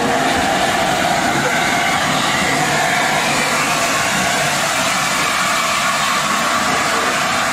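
LNER A4 Pacific steam locomotive 60007 moving slowly past at close range, giving a loud, steady hiss without a clear beat.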